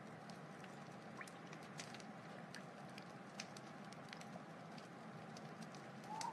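Wood fire crackling: irregular sharp pops and snaps over a steady hiss. Right at the end a louder steady tone sets in.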